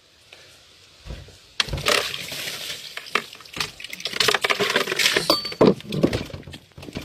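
Irregular clinking and clattering of hard objects: a run of uneven knocks and rattles that starts about a second and a half in.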